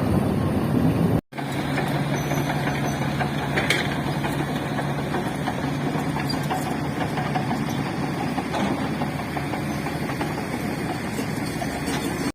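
Heavy diesel engine of construction equipment running steadily with a low hum, cut off for an instant about a second in.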